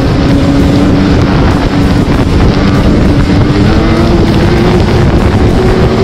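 Snowmobile engine running steadily under way, its pitch creeping slowly upward, with wind noise on the microphone.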